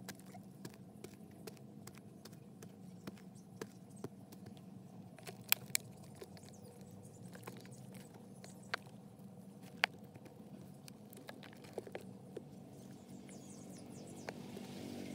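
Hands packing dry, crumbly soil around cut-down plastic oil containers sunk in a hole, giving scattered faint ticks and crackles of earth and plastic, the sharpest about five and a half seconds in and near ten seconds. A faint steady low hum lies underneath.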